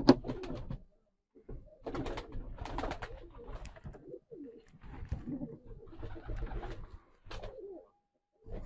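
Turkish takla (tumbler) pigeons cooing in repeated bouts with short pauses between them.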